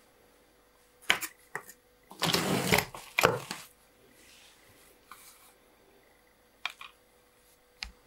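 Handling noise from a toy pram's tubular metal frame being moved by hand: a sharp knock about a second in, a rustle, then another knock, followed by a few faint clicks.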